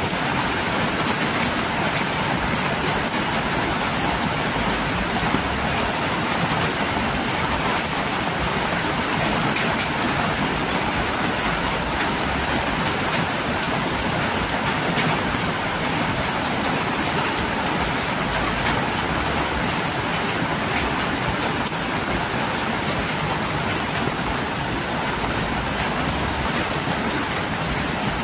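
Heavy rain falling steadily, a dense even hiss with scattered drop ticks, with water pouring off the edge of a roof.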